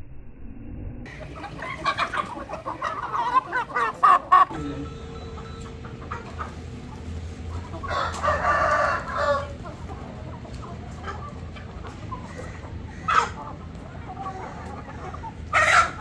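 Aseel game roosters crowing and clucking, with a cluster of short calls early on and one long crow about halfway through.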